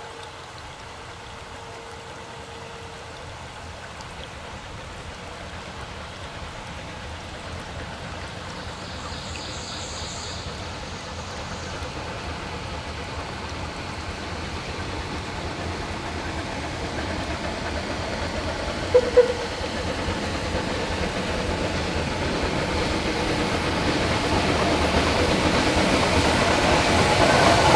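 Model Shay geared steam locomotive running with its log train, its sound growing steadily louder as it approaches. A brief double tone sounds about two-thirds of the way through.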